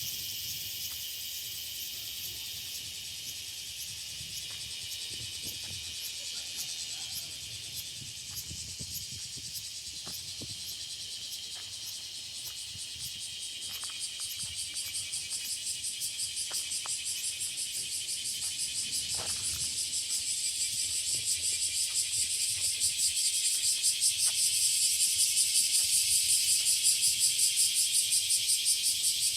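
Cicadas calling in a chorus, a dense high-pitched buzz with a rapid pulsing call that sets in about halfway and grows louder toward the end.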